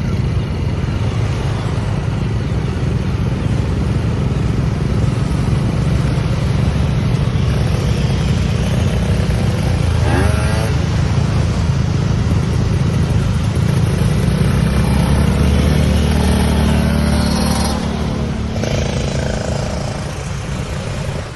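Motorcycle running steadily while being ridden, a continuous low rumble mixed with rushing noise, easing off a little near the end.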